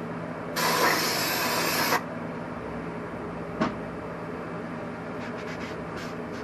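Aerosol can of brake cleaner sprayed once in a steady hiss of about a second and a half, cleaning out a freshly honed cylinder. A single sharp click follows, then a few light taps.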